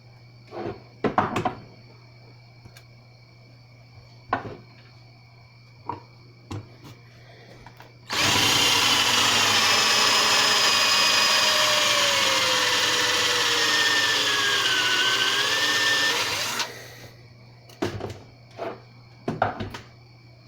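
Electric drill spinning a homemade cast-lead roll crimper against a 12-gauge shotshell, running for about eight seconds with its whine slowly dropping in pitch before it stops. Before and after it, a few short knocks and clicks of the shell and tool being handled.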